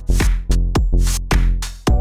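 Electronic background music with a steady, quick beat and pitched notes.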